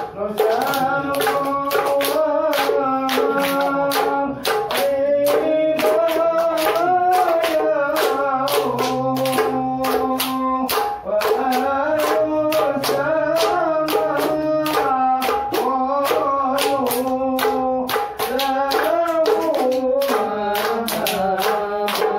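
Ishari hadrah: a group singing a sholawat in unison over a fast, steady rhythm of frame drums and hand claps.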